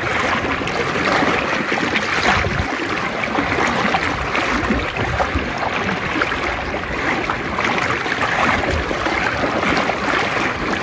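Steady rushing of river water flowing past.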